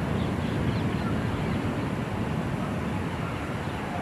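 Deep, steady rumble from the controlled implosion of high-rise towers, slowly fading as the dust cloud spreads.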